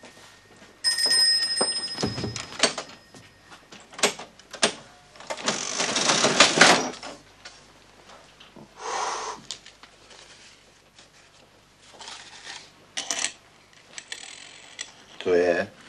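A small bell rings briefly about a second in, then come knocks and the metallic clatter of an old mechanical cash register being worked by its side crank.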